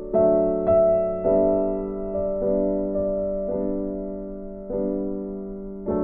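Background piano music: slow, soft notes and chords, a new one struck every half second to a second and each left to fade.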